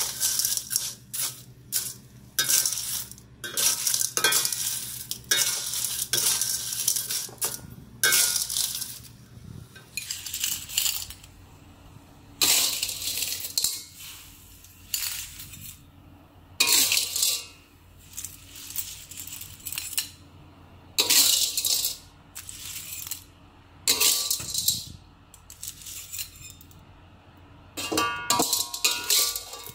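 Clam shells clattering against a steel wok as a metal spatula scrapes and tosses them, in quick irregular bursts; later the bursts come further apart as the clams are scooped onto a ceramic plate.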